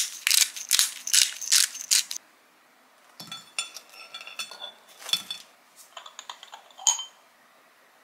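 Metal tongs clinking and scraping on a small wire-mesh grill rack as grilled rice cakes are turned, light metallic ticks with a brief ring, from about three seconds in to near the end. Before that, in the first two seconds, comes a quick run of about eight sharp, noisy strokes.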